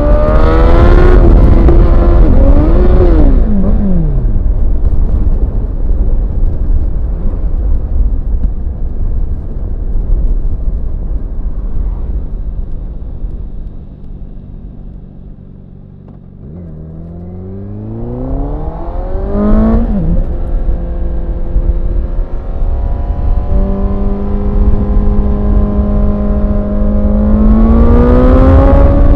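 Honda CBR1000RR SP inline-four sportbike engine running hard: the revs fall away in the first few seconds, run low and quieter a little past the middle, then climb steeply with a brief dip as it shifts and keep rising before dropping again near the end.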